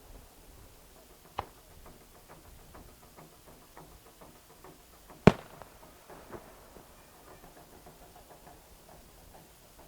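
Fireworks shells bursting: a sharp, loud bang about five seconds in and a smaller one about a second and a half in. Underneath runs faint, rapid, regular drumming from taiko drums.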